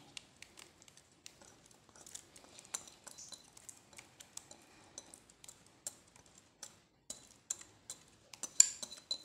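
A kitchen utensil scraping and tapping against a mixing bowl as the last cake batter is scraped out into a baking tray: scattered light clicks and scrapes, with one sharper knock near the end.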